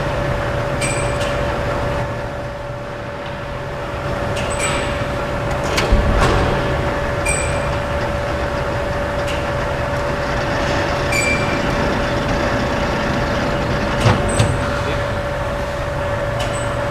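Metal lathe running during passes cutting a 3/4-inch NPT taper thread: a steady whine over a low hum, with sharp clicks and knocks every few seconds.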